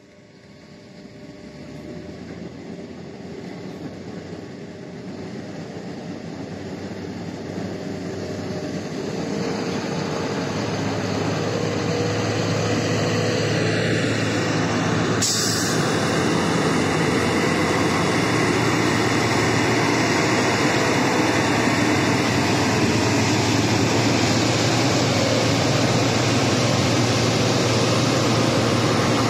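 Diesel engine of a 60-ton XCMG mining dump truck, growing steadily louder over about ten seconds as the truck comes close, then running loud and steady. One short sharp click about halfway through.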